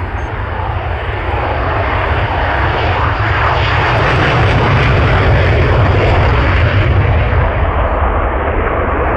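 Saab J35 Draken's afterburning turbojet at full takeoff power: loud, crackling jet noise that builds as the fighter speeds down the runway, is at its loudest as it passes about four to seven seconds in, then eases slightly as it climbs away.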